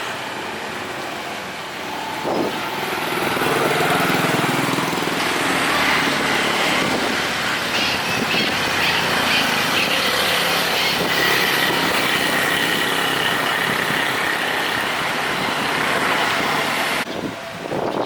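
Steady street noise of motor vehicles running and passing, with a constant hiss of noise; it drops away abruptly shortly before the end.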